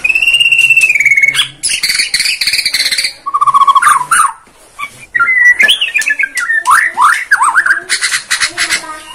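Caged white-rumped shama of the Bornean type (murai batu Borneo) singing a loud, varied song: a long arching whistle, then dense buzzy rattles, a low trilled whistle and quick rising and falling trills, with another rattle near the end.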